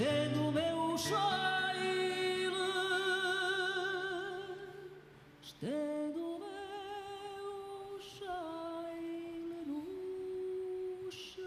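A woman singing fado live into a microphone: two long, slow phrases with heavy vibrato on held notes, split by a short breath about five seconds in, with little instrumental sound beneath the voice.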